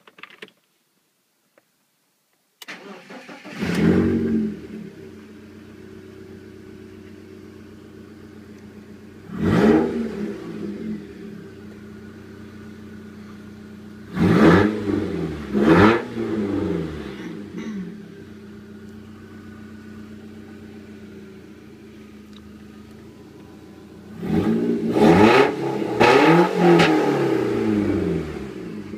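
BMW 318i E46 four-cylinder petrol engine cranked on the starter and catching with a quick rise in revs, then idling steadily. It is blipped once about seven seconds later, twice more around the middle, and given a run of quick revs near the end.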